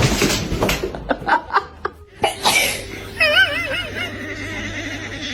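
A person laughing in short bursts and snickers. A brief wavering, warbling tone comes a little past the middle.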